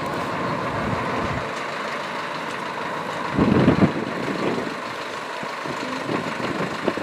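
Solis 90 tractor engine running as it tows a Keenan diet feeder, with a louder burst of noise about three and a half seconds in.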